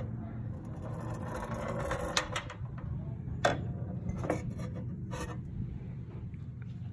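About four sharp clicks and knocks over a steady low rumble.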